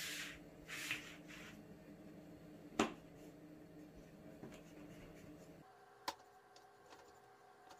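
Knife scoring layered yufka (phyllo) baklava pastry in a tart pan: short, scratchy cutting strokes in the first second or so, then quiet cutting with two sharp clicks, one about three seconds in and a smaller one about six seconds in.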